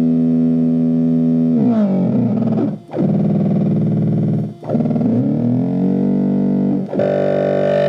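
Teensy 3.6 virtual-analog synthesizer breadboard sounding a held tone built from its oscillators stacked in octaves with added harmonics. The note breaks off briefly three times and restarts, and its tone sweeps and shifts as the controls are turned, turning brighter near the end.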